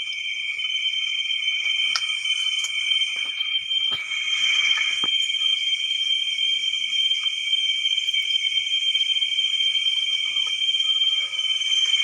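Night insect chorus, crickets trilling steadily at two high pitches. A few faint clicks about two, four and five seconds in.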